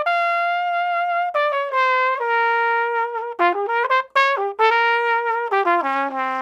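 Flugelhorn playing a short unaccompanied melodic phrase: long held notes stepping downward, a quick run of short notes in the middle, and a low held note at the end.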